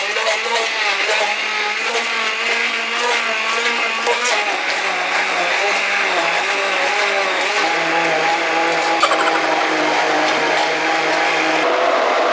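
Countertop blender motor running at high speed, blending chopped cucumber with a little water, with a steady whine whose pitch wavers and drops a little past the middle.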